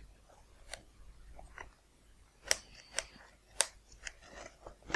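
Handling noises as a small radio receiver is glued into a foam model plane's fuselage: three sharp clicks about half a second apart in the middle, with fainter clicks and light rustling around them.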